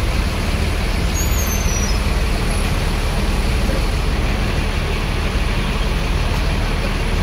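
Large coach bus's diesel engine running steadily at close range, a continuous low rumble.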